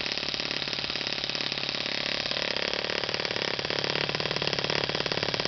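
OS FS-20 single-cylinder four-stroke glow model engine running steadily on its first break-in tank, a fast even stream of firing pulses; its tone shifts slightly about two seconds in.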